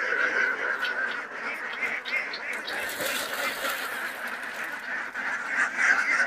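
A large flock of domestic ducks quacking all together in a dense, continuous chorus as they are let out of their shed.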